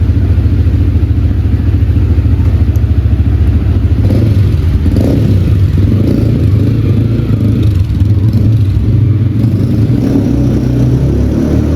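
Motorcycle engine running close up after a service, idling with rapid even firing pulses, then revved up about four seconds in and running faster and fuller for the rest.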